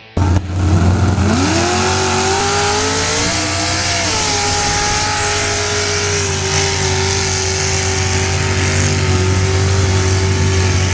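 Mud-bog truck's engine revving hard as it launches down a mud pit, with its tyres spinning and throwing mud. The engine climbs in pitch over the first couple of seconds, then holds at steady high revs.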